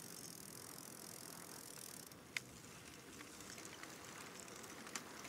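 Bicycles rolling along a paved path: a faint steady hiss with a few light clicks, one sharper click about two and a half seconds in.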